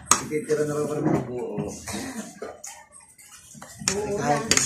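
A man's voice mumbling without words through a full mouth while eating, with a spoon and fork clicking against a plate at the start and again near the end.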